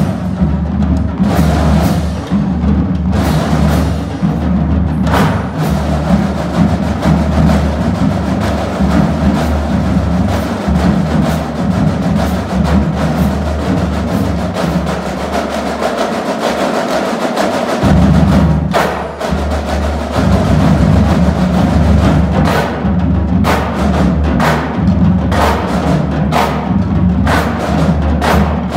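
Marching drumline playing: rapid snare drum strokes over pitched marching bass drums. The low bass drum notes drop out for a few seconds a little past halfway, then come back in.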